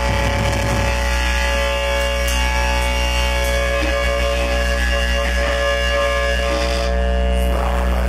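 Live death metal band playing through amplifiers, loud and heavily distorted: electric guitars and bass guitar holding a sustained ringing chord over a heavy low-end rumble.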